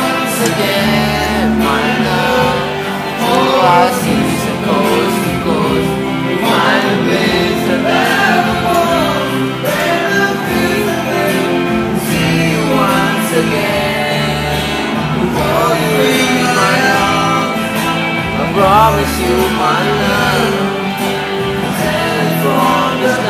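Live music: a singer performing a song with instrumental accompaniment, the sung melody rising and falling over held bass notes.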